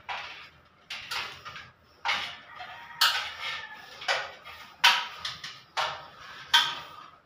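Electrical wire being pulled by hand through conduit into a wall switch box: its insulation scrapes and squeaks against the conduit and box edge in about eight sharp tugs, roughly one a second.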